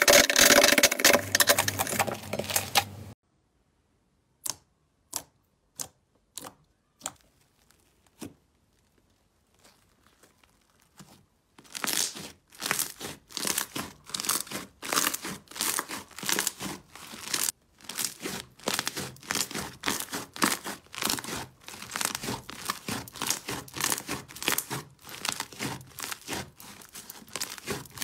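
Hands squeezing and stretching a thick pink slime, making dense crackling and tearing pops, several a second, from about twelve seconds in. Before that there are about three seconds of loud squishing from blue slime worked by hand in a glass bowl, then a quiet stretch broken by a few single sharp clicks.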